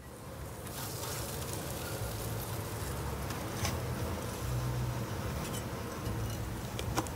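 A steady low droning hum, with a faint click or two.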